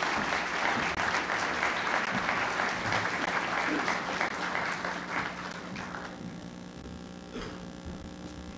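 Audience applauding, dying away about six seconds in, leaving a steady mains hum with one brief click near the end.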